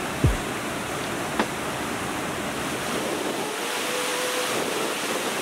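Steady rushing of a rain-swollen waterfall. Just after the start a loud low tone slides quickly downward, and a sharp click comes at about a second and a half.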